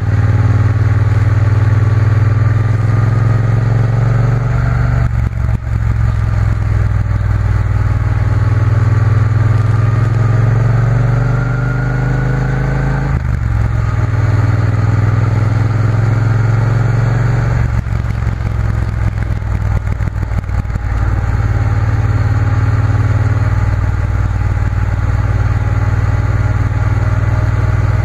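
Triumph Bonneville T120 parallel-twin engine under way on the road, rising in pitch as it pulls through the gears. There are short breaks at gear changes about five seconds in and again around thirteen seconds. Between about 18 and 21 seconds it backs off before pulling steadily again.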